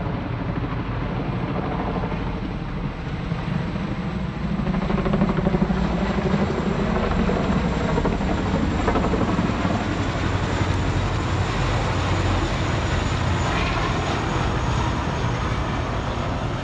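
Formation of military helicopters, including tandem-rotor Boeing CH-47 Chinooks, flying overhead with a dense, rapid rotor chop that grows loudest about five seconds in and then holds steady.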